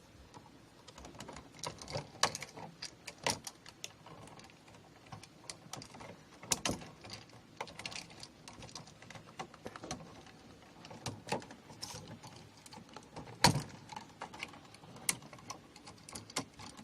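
Irregular small clicks, taps and rattles from handling electrical wires and hand tools at an open wall switch box. The sharpest clicks come about two, six and a half and thirteen and a half seconds in.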